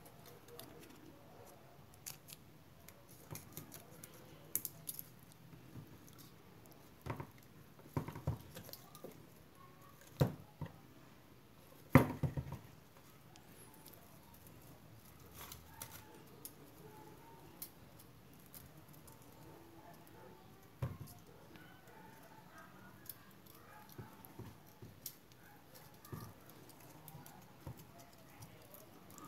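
Scattered light clicks, taps and rustles of enamelled copper wire coils being handled and worked into the slots of a small electric motor's stator during rewinding. The loudest knock comes about twelve seconds in.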